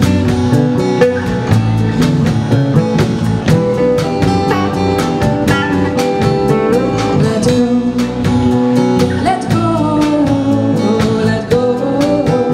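A live band playing a song: two acoustic guitars strummed over electric bass and a drum kit keeping a steady beat, with singing.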